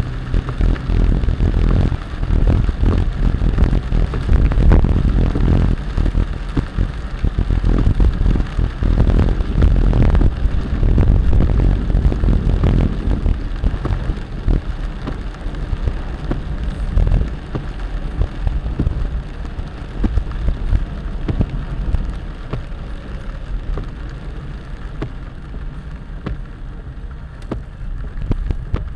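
Heavy rain falling, with a strong low rumble under it and many sharp drop hits. It eases somewhat in the second half.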